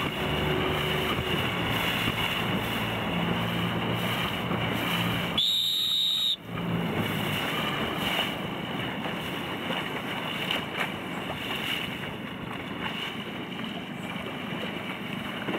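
Wind buffeting the microphone over water splashing around a small boat under way, with a low steady hum for the first several seconds. A short high beep cuts in about five and a half seconds in.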